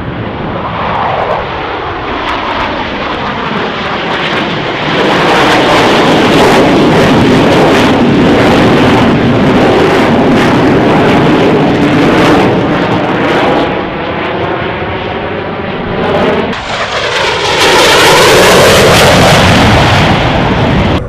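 Military aircraft flying past low and loud, growing much louder about five seconds in. A second loud pass sweeps by near the end.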